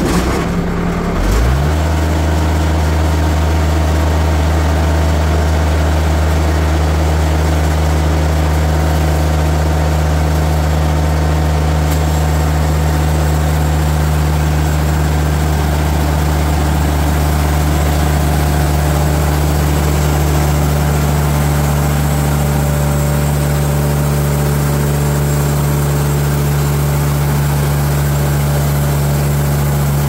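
TimberKing 2020 bandsaw sawmill engine revving up about a second in, then running at a steady high speed while the Kasco band blade cuts along a log. A brighter hiss joins the engine hum about twelve seconds in.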